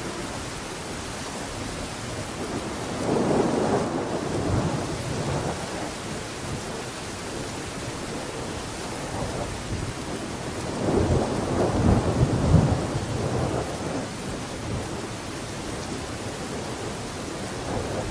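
A steady rushing noise like rain, with two low rumbling swells, one a few seconds in and a longer one past the middle.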